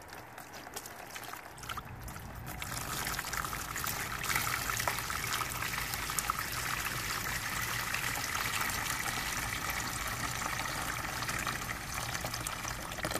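Water poured into a plastic bin, splashing and spreading across the bin's floor around a planter. The pour builds over the first few seconds, then runs steadily.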